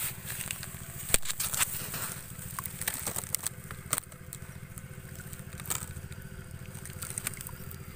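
A hand rustling through dry stalks and probing wet mud at an eel burrow, with crackling clicks that cluster in the first few seconds and then thin out. A steady low rumble runs underneath.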